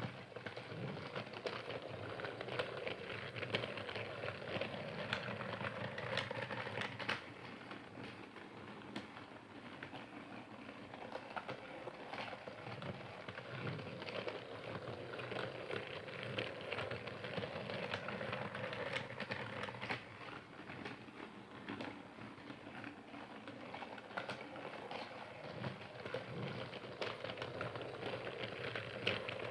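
Percy toy train running continuously, a steady rattling clatter of many small clicks from its small motor and wheels.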